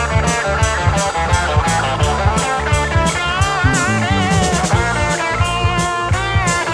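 Hard rock music: a drum kit keeps a steady beat under electric guitar. From about halfway, a lead guitar line comes in whose notes bend and waver.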